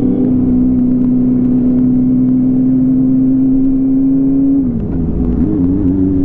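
Car running, heard as a steady droning tone. Near the end the tone dips and wavers in pitch.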